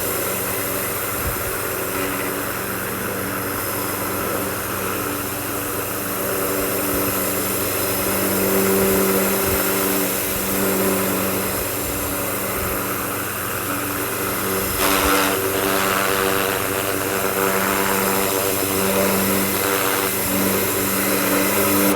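Ryobi 1600 PSI brushed electric pressure washer running with the trigger held: a steady motor-and-pump hum over the hiss of the water jet, cutting off suddenly at the end.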